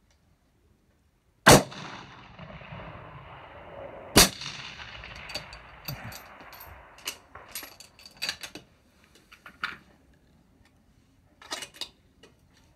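Two rifle shots about two and a half seconds apart, each followed by a long echo rolling away across the range. A few lighter clicks and knocks follow.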